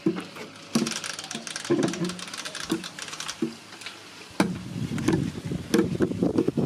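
A sliding screen door is unlatched with a click and rolled open along its track with a rattling scrape, then knocks. From about four seconds in comes a denser run of footsteps and thumps.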